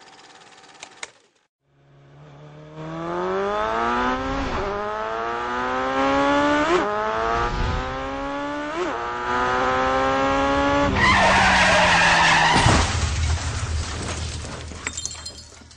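A car engine accelerating hard, its pitch climbing and dropping back three times as it shifts up through the gears, then a long loud tyre skid about eleven seconds in that fades away.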